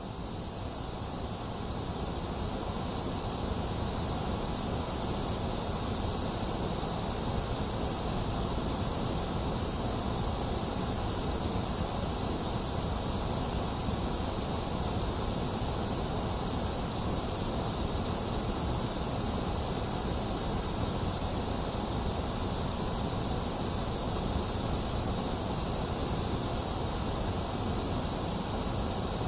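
Box fan running steadily with rain falling, one even, unbroken rush of noise that fades in over the first few seconds and then holds level.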